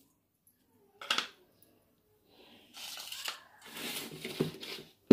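A sharp click about a second in, then a few seconds of rustling and scraping as plastic kitchen containers are handled.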